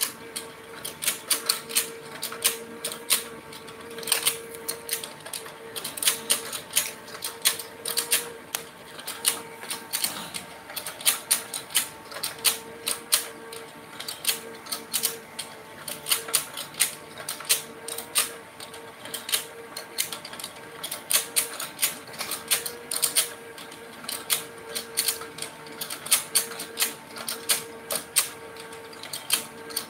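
Electric toy fishing game running: its plastic fish and mechanism clicking and clattering irregularly, several clicks a second, over a steady hum.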